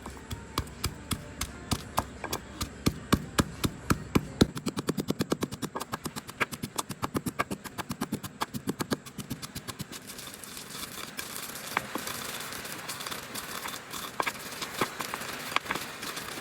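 A rapid run of sharp knocks, a few a second at first and then quickening to about eight a second. About ten seconds in they give way to a steady rustling hiss with scattered knocks.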